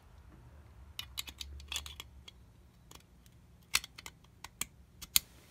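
Sharp metallic clicks and clinks, about a dozen at irregular spacing, as springs are fitted into a Hilliard Extreme Duty centrifugal clutch with snap ring pliers. The two loudest clicks come near the end.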